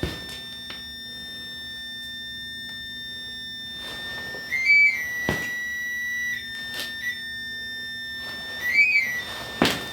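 REM pod alarm sounding a steady high electronic tone, which twice warbles briefly upward in pitch, about halfway through and near the end. A couple of sharp knocks are heard too.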